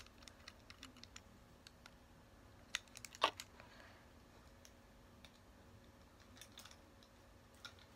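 Faint handling of a plastic action figure: scattered small plastic clicks and taps, the two loudest close together about three seconds in, as accessory tabs are pushed into the figure.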